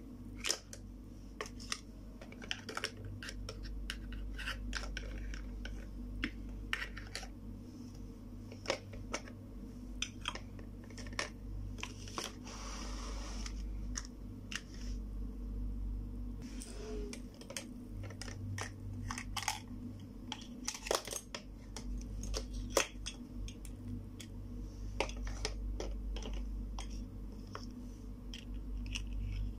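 Hard plastic toy cookware and play food clicking and knocking together as pieces are picked up and set down, many small irregular clicks over a steady low hum.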